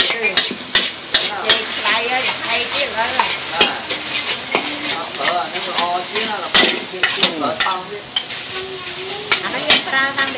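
Two metal ladles scraping and clanking against a large steel wok as flat noodles are stir-fried, over a steady sizzle of frying. Sharp clanks come irregularly throughout.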